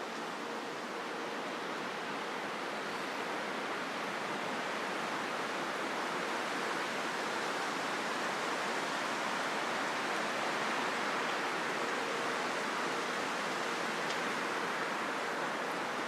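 Wind blowing steadily through surrounding vegetation, a rushing noise that swells a little near the middle.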